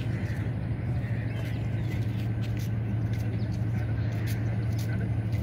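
A steady low engine-like drone that runs without a break, with faint light ticks over it.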